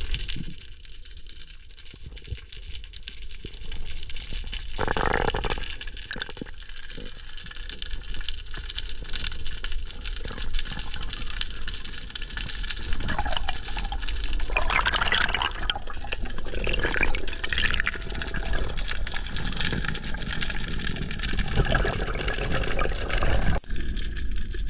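Underwater sound from a diver's camera: water rushing and bubbling around the housing, with louder gushes about five seconds in and again through the middle.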